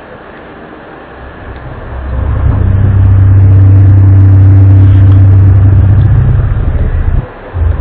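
A loud, deep droning hum with a steady low pitch and overtones above it. It swells in over the first few seconds, holds steady, then drops away briefly about seven seconds in before coming back. This is the kind of unexplained low drone circulated as the 2012 'strange sounds' heard worldwide.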